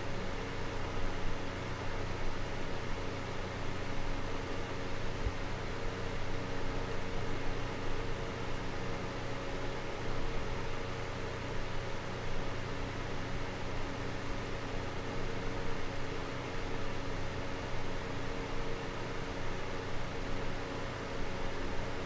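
Small desk fan running steadily: an even rush of air with a faint, constant hum underneath.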